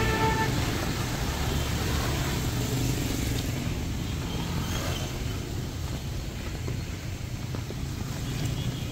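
Street traffic in heavy rain: a steady low rumble of vehicle engines under the hiss of rain, with a vehicle horn that cuts off about half a second in.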